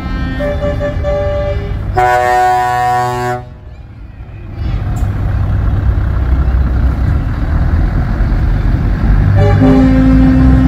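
A truck air horn blasts a chord for about a second and a half, then heavy truck engines rumble as the lorries pull away. The rumble grows louder near the end as the Scania 164L's V8 diesel draws close.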